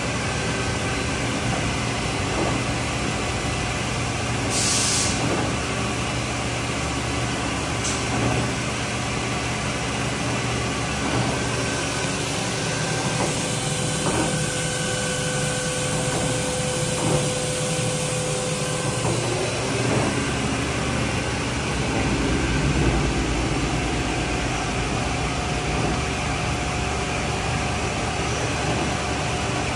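Steady hum of a vertical machining center and shop machinery running, with several steady tones. A short hiss of air comes about four and a half seconds in, and a steady whine joins in around the middle for several seconds.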